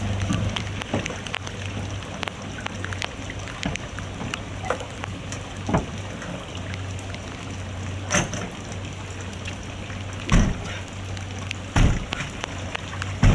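Floodwater sloshing and splashing around a man wading chest-deep, with scattered knocks and a few sharper thumps as he works at a flooded house's door, over a low steady hum.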